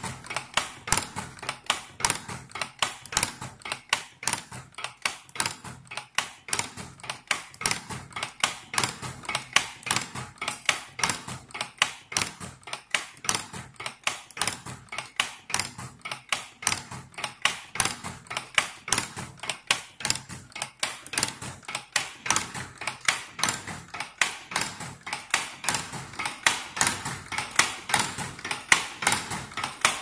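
Strapping wire buckle machine running: its forming tooling clacks steadily at about three strokes a second, shaping steel wire into buckles for cord strapping.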